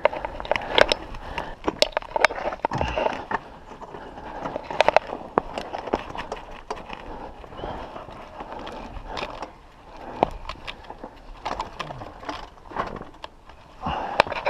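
Irregular clicks, knocks and scraping of a mountain bike being handled down over rock.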